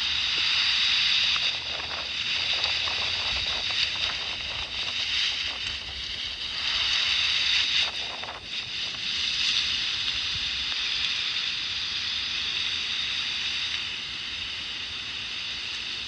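Strong gusty wind hissing through trees and buffeting the microphone, swelling and easing from moment to moment.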